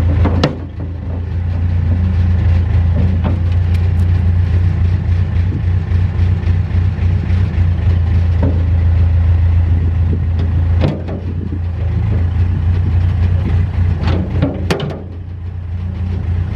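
Mustang 940E skid steer's Yanmar diesel engine running steadily, easing off briefly a few times, with occasional sharp knocks and clanks.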